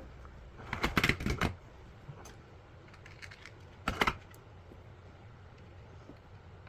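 Small hard objects clattering on a workbench: a burst of rattling clicks about a second in and a short double click around four seconds in, over a faint steady low hum.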